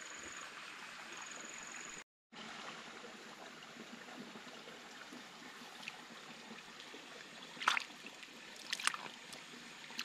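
Steady sound of trickling, flowing water, with a few brief splashes in the second half. A thin, steady high insect buzz runs for the first two seconds, until the sound drops out for a moment.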